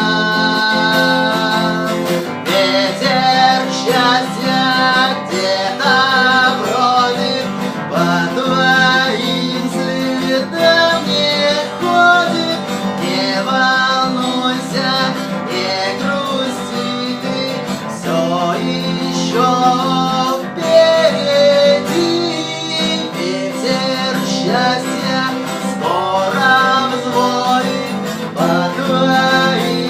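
Acoustic guitar playing a song, chords with a melody line moving above them.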